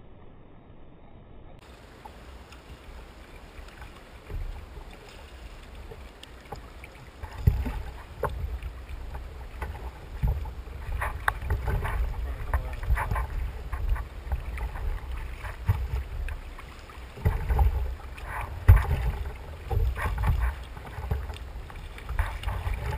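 Wind buffeting the microphone and water lapping against a Hobie fishing kayak's plastic hull, quiet at first and gusting harder from about a third of the way in. Scattered short clicks and small splashes run through it.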